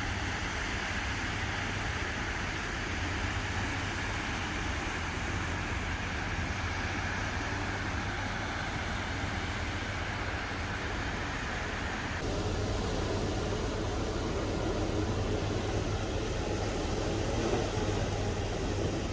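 Small, gentle sea waves washing onto a sandy beach, with wind rumbling on the microphone. A steady wash of noise that turns abruptly lower and fuller about two-thirds of the way through.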